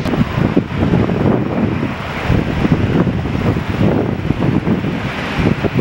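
Wind buffeting the microphone in irregular gusts over a low, steady rumble of jet engines from an airliner on final approach.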